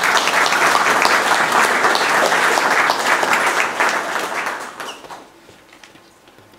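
Audience applauding, many hands clapping together, dying away about five seconds in.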